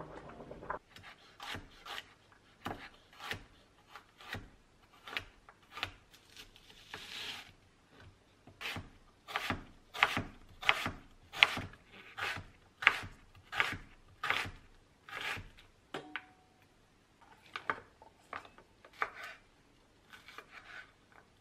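Chef's knife slicing garlic cloves and vegetables on a wooden cutting board: a steady run of sharp knocks of the blade on the board, about one and a half a second, growing sparser after about 16 seconds.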